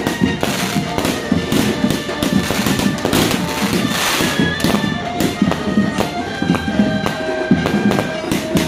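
Aerial fireworks from a consumer fireworks package going off in quick succession: a continuous series of sharp bangs and crackling. Music plays throughout alongside the explosions.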